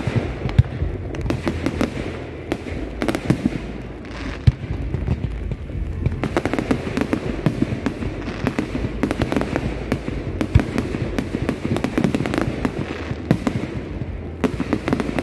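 Aerial fireworks display: a dense, unbroken run of bangs and crackles from shells bursting overhead, with a few louder single bangs standing out.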